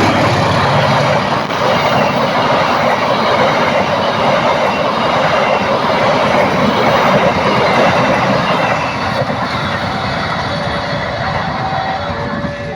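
A passenger train running through close by at speed: a loud, steady rush of wheel and rail noise that eases slightly near the end.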